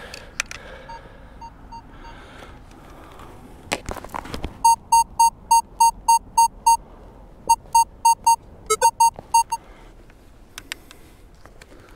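Minelab Vanquish 540 metal detector giving its target tone, short high beeps at about four a second, as the coil sweeps back and forth over a non-iron target reading 25–26. Four faint beeps come about a second in; then, after a couple of knocks, the loud beeps come in three runs before stopping a couple of seconds before the end.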